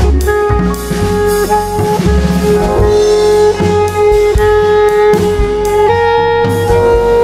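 Instrumental background music with a drum beat and long held melody notes.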